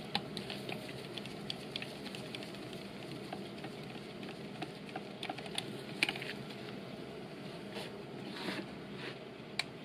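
Scattered light clicks and taps of a hand tool working the oil pan bolts loose on a 9G-Tronic automatic transmission, irregular rather than a steady ratchet rhythm, over a low steady hiss.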